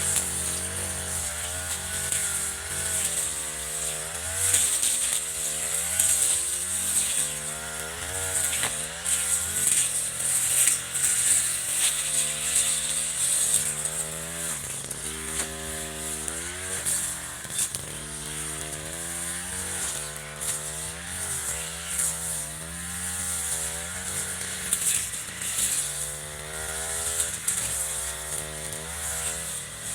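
Echo RM435 brush cutter's small two-stroke engine running, its pitch rising and falling again and again as the throttle is worked.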